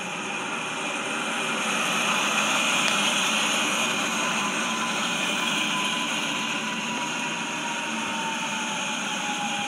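Electric train pulling in and braking: a rushing hiss that swells and then slowly fades, with a faint whine falling in pitch.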